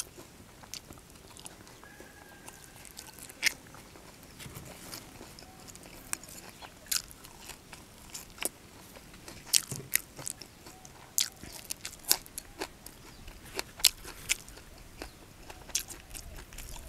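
Close-up chewing with sharp, irregular crunches: a mouthful of sticky rice with fish laab, then fresh raw leaves being bitten and chewed.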